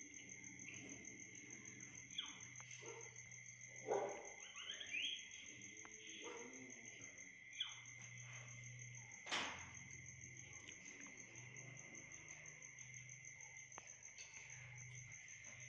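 Faint, steady insect chirping with an even, fast pulse, under a low hum. Around the middle there are a few soft knocks and brief squeaky chirps, the loudest about four and nine seconds in.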